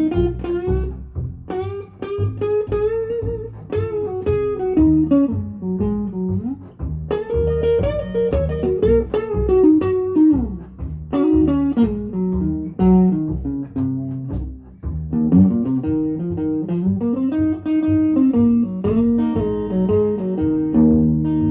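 Blues guitar music: picked guitar notes over a low bass line, with notes that slide and bend in pitch.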